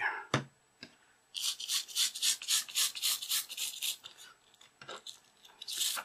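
Toothbrush bristles scrubbing a rubber remote-control button mat wet with isopropanol, in quick strokes about four a second, cleaning the carbon contact pads. A single knock comes just before the scrubbing starts; the strokes thin out about four seconds in and pick up again near the end.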